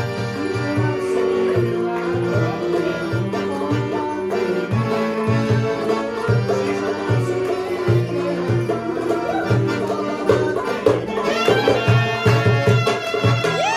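Live Middle Eastern dance music from a small band of clarinets, accordion, violin and hand drum, with the drum keeping a steady rhythm under the melody. The band comes in at full volume right at the start.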